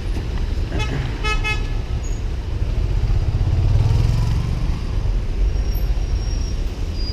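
Street traffic: a car horn gives two short toots about a second in, then a vehicle engine rumbles past, loudest around four seconds in.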